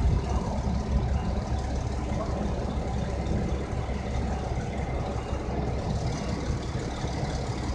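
Diesel engines of heavy mobile cranes running steadily while holding a locomotive lifted in slings.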